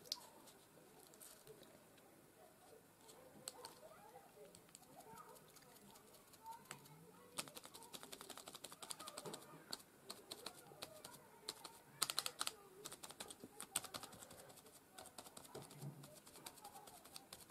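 A small foam sponge dabbing paint through a plastic stencil onto card on a tabletop: runs of quick, light taps, thickest from about halfway in, with a louder cluster a little after that.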